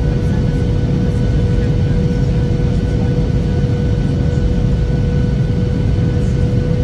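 Jet airliner cabin noise: the steady rumble of the engines and rushing air, with a constant droning hum over it.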